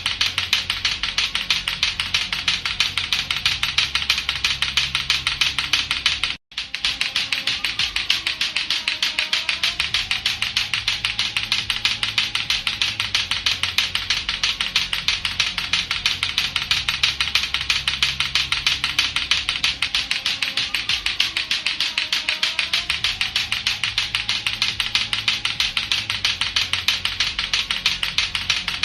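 Latto-latto clackers: two hard plastic balls on a string knocking together in a rapid, steady clacking of several clacks a second. The clacking breaks off for a moment about six seconds in, then carries on at the same pace.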